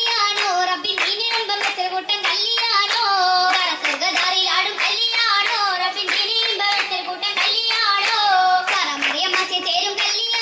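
Oppana, the Mappila wedding dance song: a chorus of girls singing in Malayalam while clapping their hands in a steady rhythm, sharp repeated claps over the melody.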